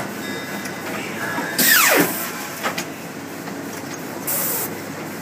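Polar 137 Autotrim guillotine paper cutter making a cut. A loud hissing rush with a falling tone comes about a second and a half in, then a click, and a shorter hiss about four seconds in, all over a steady machine hum.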